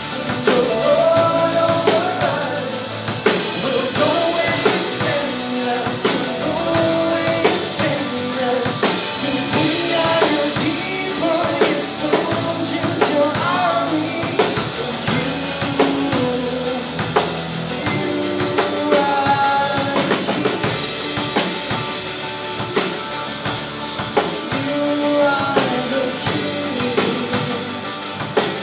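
Live worship band playing a rock-style song: a male lead vocal with a female harmony voice, strummed acoustic guitar, electric guitar and a drum kit keeping a steady beat.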